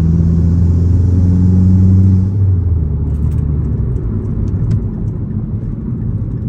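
2013 Mazdaspeed3's turbocharged 2.3-litre four-cylinder, with aftermarket Corksport exhaust and Cobb intake, pulling under full load in fifth gear, heard from inside the cabin. The engine drone builds steadily for about two seconds, then falls away as the throttle is lifted, leaving road and tyre rumble.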